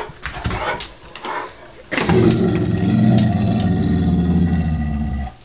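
Brief scuffling sounds, then an animal's low, continuous growl lasting about three seconds, starting about two seconds in.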